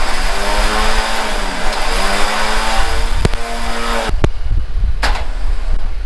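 Warn Zeon 10-S Platinum electric winch running under power, its motor and gears spooling synthetic rope onto the drum with a whine that wavers in pitch. It stops about four seconds in, and a few clicks and a knock follow.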